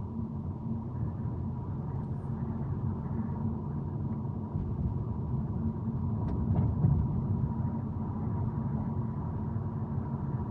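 Car driving along a city street, heard from inside the cabin: a steady low rumble of road and engine noise with a thin steady whine over it, and a brief louder bump a little past halfway.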